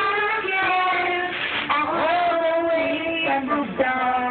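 Singing, with children's and a woman's voices holding long notes of a tune.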